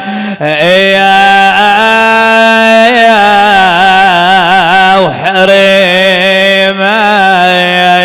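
A man's voice chanting a long, drawn-out lament on held vowels, wavering and ornamented around a steady pitch, with a short break for breath about five seconds in.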